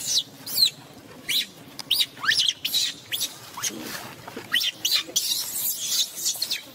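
Baby macaque screaming: a string of shrill cries, each falling in pitch, coming about two a second.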